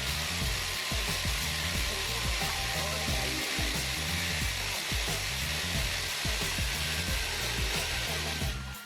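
Power drill running steadily, boring through a wall with a long drill bit, then stopping abruptly near the end. Background music with a steady beat plays underneath.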